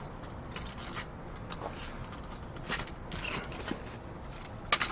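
Scattered clicks and scrapes from a reach grabber handling items in a dumpster, with a sharp click about a second and a half in and a louder cluster of clicks near the end.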